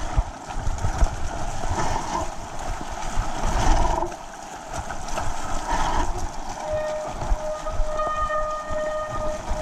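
Mountain bike rolling downhill over a wet, muddy, rutted dirt track: tyre noise and rattling of the bike, with wind rumbling on the camera microphone. Near the end a steady high squeal, typical of a wet disc brake being dragged.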